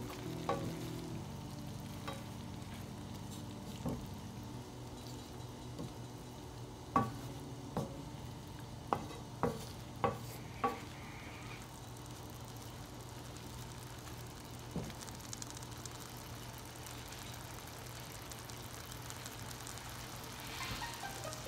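Spinach cooking in olive oil in a nonstick frying pan, sizzling steadily as a wooden spoon stirs it. The spoon knocks sharply against the pan now and then, several times in quick succession around the middle.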